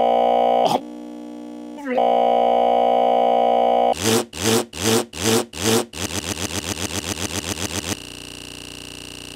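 Glitch stutter effect: a tiny scrap of audio looped so fast that it becomes a steady electronic buzz. It drops quieter about a second in and comes back loud, breaks into chopped pulses about four seconds in (roughly three or four a second), then a faster rattle, and ends as a quieter steady buzz.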